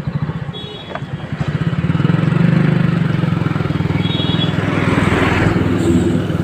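Motorcycle engine running steadily under way, heard from on board, louder from about two seconds in. A rushing noise swells a little past the middle.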